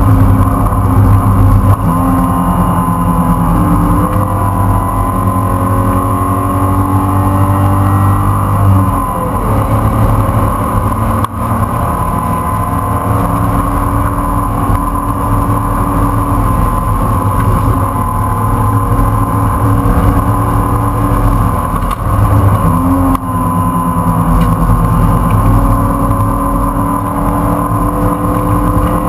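In-car sound of a race car's engine running hard at high revs on track. The engine note falls away twice, about nine seconds in and again near twenty-two seconds, then climbs back up.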